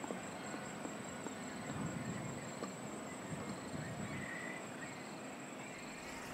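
Insects droning in a steady, high-pitched tone, with short chirps repeating about once a second, over a faint low rumble of open-air ambience.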